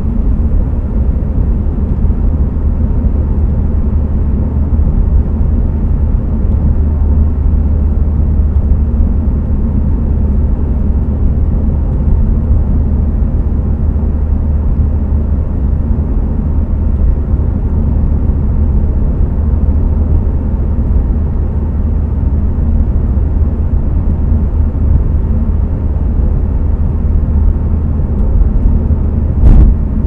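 Steady low rumble of a Mitsubishi Lancer Evolution X (CZ4A) cruising at expressway speed, tyre and engine noise heard from inside the cabin. A single short thump comes near the end.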